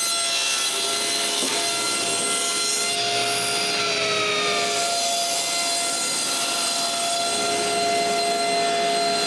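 Thickness planer running and cutting boards, a steady machine whine with blade noise; its tone sags about four seconds in as the machine takes load, then recovers.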